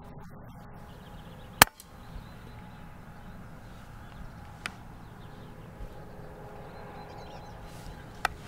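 A single sharp shot from a Daystate Mk4 FAC-rated pre-charged pneumatic air rifle about one and a half seconds in, with a couple of faint clicks later against quiet outdoor background.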